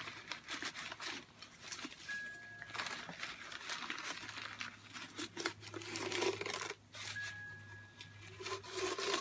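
Crumpled paper wrapping crinkling and tearing in irregular rustles as it is pulled off a small ceramic Christmas figurine by hand.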